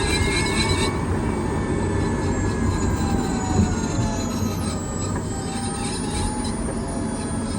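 Kia Niro EV running with a grinding noise that the owner takes for a defect of unknown cause: a steady low rumble with several thin whining tones that slowly rise and fall, and a high whistle that shifts pitch about halfway through.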